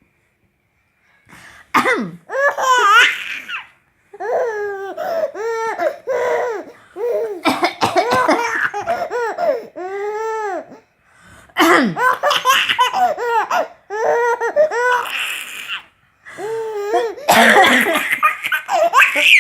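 A toddler laughing heartily in repeated runs of high-pitched giggles, with short pauses between the runs.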